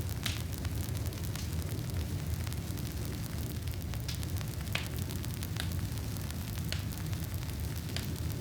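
Campfire wood burning: a steady low rumble of the flames with frequent crackles and sharper pops from the burning wood.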